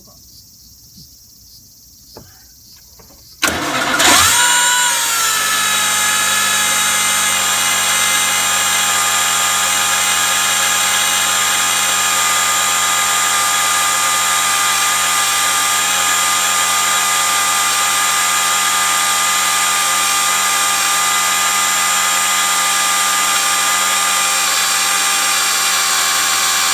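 Faint insect chirring, then about three and a half seconds in the Toyota Alphard's engine starts and settles into a steady idle. Over the idle runs a loud, steady high-pitched whine from the Rotrex supercharger, whose internal bearing has seized and broken.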